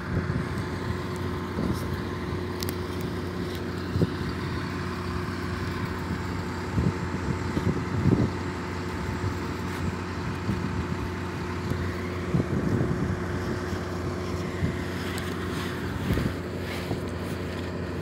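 Engine of heavy cable-pulling machinery running steadily, with a few faint knocks.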